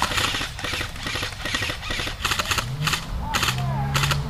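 Airsoft guns firing in several short bursts of rapid shots, the loudest in the second half.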